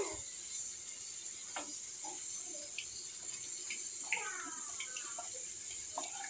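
Hot oil sizzling steadily in a steel kadai on a gas stove, with a few light clicks of a metal spatula against the pan.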